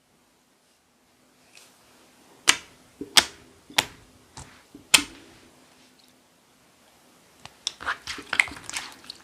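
Mixed slime being pressed and worked by hand, giving sharp air-bubble pops: four loud ones a second or so apart, then a quick run of crackling pops near the end.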